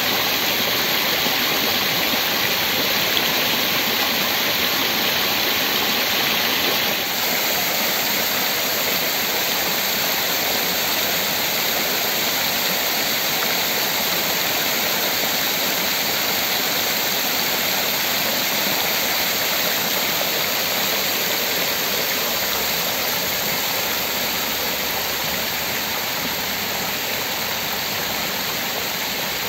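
Basin fountain's row of low water jets splashing into the shallow pool, a steady rushing of water. It drops slightly in level about seven seconds in.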